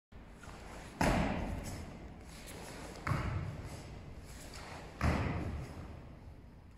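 Three heavy stamping steps of bare feet on a foam karate mat, about two seconds apart, each a sudden thud that dies away with an echo in the hall.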